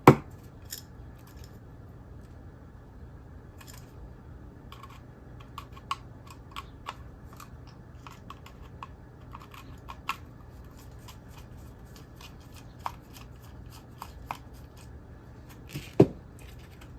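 Scattered small clicks and scrapes of a screwdriver backing out Phillips screws and of parts being handled on a plastic switchbox housing, with a sharp knock at the very start and another about a second before the end. A steady low hum runs underneath.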